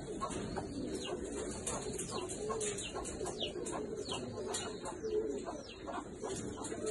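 A group of king pigeons cooing in a wire loft, with low wavering coos throughout. Short, high, falling chirps from other birds are heard over them.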